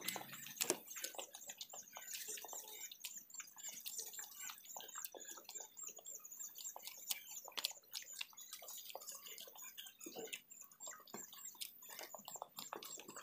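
Close eating sounds of a person eating by hand: wet lip-smacking and chewing with many small sharp clicks as fingers gather rice off a banana leaf. A thin, high wavering trill runs steadily behind it.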